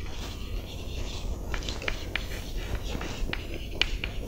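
Chalk writing on a blackboard: an irregular string of short taps and scrapes as the letters are written.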